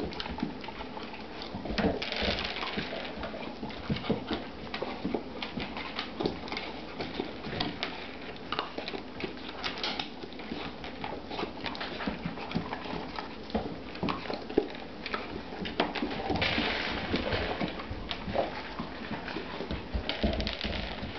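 A greyhound puppy eating kibble off a wooden parquet floor and nudging a rubber Kong toy: a busy, uneven run of small clicks and knocks from crunching, claws and kibble on the wood. A rougher stretch of noise comes about two seconds in and again around sixteen seconds in.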